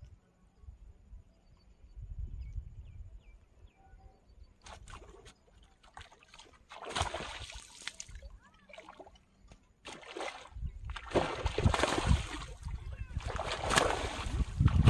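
Water sloshing and splashing that starts about four and a half seconds in and builds to the loudest splashes near the end, as a hooked fish thrashes at the surface against a bent fishing rod. A low wind rumble runs underneath.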